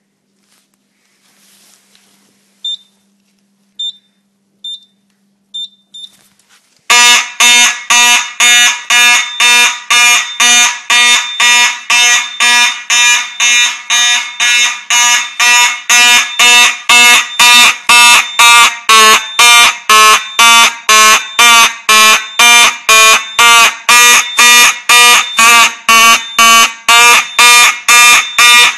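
Several Simplex fire alarm horns sounding together in march time, loud short blasts at about two a second, start about seven seconds in. Before them come a few short, high beeps over a faint low hum.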